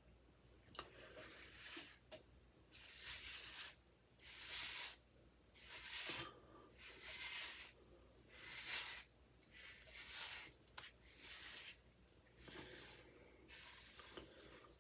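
Hair being styled: a dozen or so short, fairly quiet hissing strokes, about one a second.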